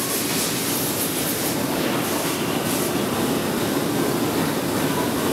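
Steady industrial roar of a glassblowing workshop, the even noise of furnaces and air blowers around the bench.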